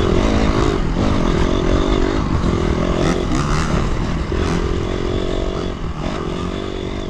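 Four-stroke single-cylinder engine of a 2004 Honda CRF250 dirt bike running under way, its pitch rising and falling with the throttle.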